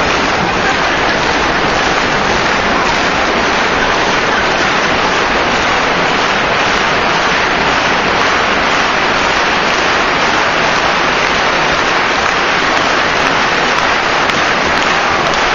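A stadium crowd of thousands applauding, a dense, steady clatter of clapping that neither swells nor fades.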